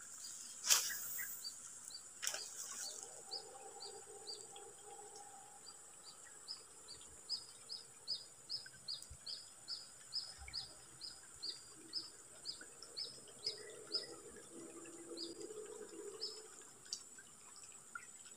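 Small bird chirping over and over, short high notes at one pitch about two to three a second, over a steady high insect drone. Two sharp ticks come in the first couple of seconds.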